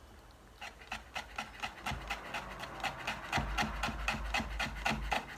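Knife rapidly chopping orange peel into fine shreds on a cutting board, quick even strokes about five a second.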